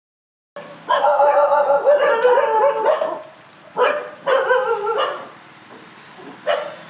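Dogs barking and yelping: after a brief dead silence, a run of loud barks for about two seconds, then single short barks at about four, four and a half and six and a half seconds in.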